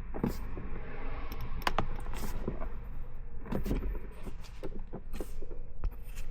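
Scattered plastic clicks and knocks from a center console lid being tugged and wiggled by hand in a 2009 Toyota Highlander, still held on by something after its screws are out.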